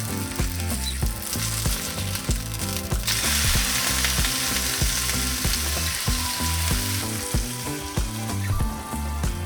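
Okonomiyaki frying in hot oil in a pan, sizzling steadily. The sizzle grows louder for a few seconds in the middle, over background music.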